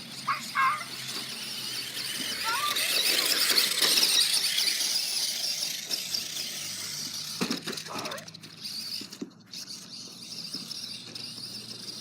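A toy RC car driving, its small electric motor and wheels whirring up and then fading away. There are a few short high squeaks early on and some light knocks later.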